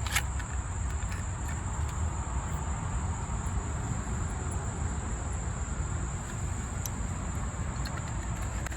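Steady high-pitched chirring of crickets over a low background rumble, with a couple of brief clicks, one at the start and one about seven seconds in.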